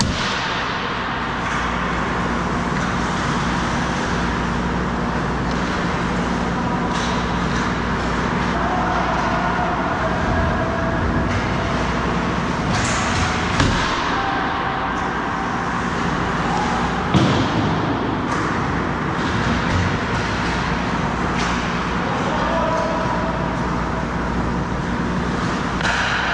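Ice hockey game sounds: a steady rink hum and the hiss of skates on ice, with a few sharp stick-and-puck knocks, two of them louder around the middle, and distant players' voices.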